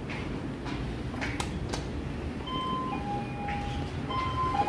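A lift's electronic two-tone chime, a higher note followed by a lower one, sounding twice over a steady hum of the lift car, after a few sharp clicks like buttons being pressed.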